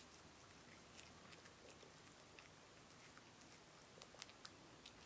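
Faint crunchy clicks of a cat biting and chewing kernels off a cob of corn, with a short run of louder crunches about four seconds in.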